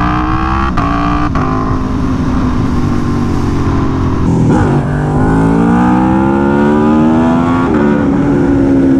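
Aprilia Tuono V4 1100 Factory's V4 engine, fitted with an SC Project CR-T exhaust, accelerating hard in second gear. Its note rises, drops sharply and picks up again several times as the wheelie control cuts power, then holds nearly level near the end.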